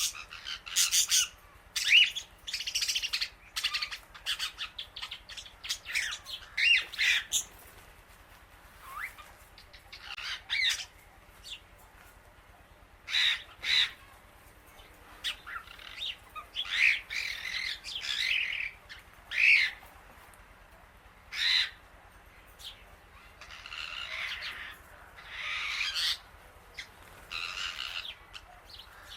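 Birds squawking: short, harsh calls repeated in clusters, with a few brief pauses, mixed with lighter chirps.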